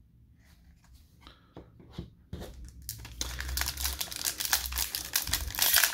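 Foil trading-card pack wrapper crinkling loudly as it is torn open by hand, starting about three seconds in, after a few light clicks of cards being handled.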